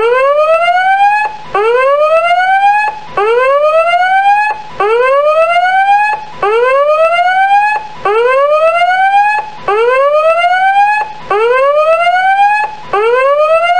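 Countdown timer's electronic end alarm whooping: a tone that glides upward in pitch for about one and a half seconds, breaks off and starts low again, about nine times over.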